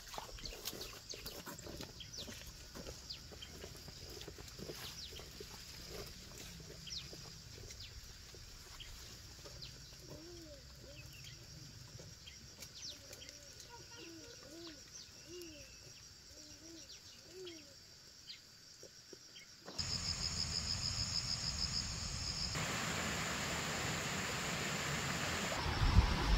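Chickens clucking in a run of short low calls, among scattered clicks and rustles. About twenty seconds in, the sound switches abruptly to a louder steady hiss with a fast-pulsing high tone.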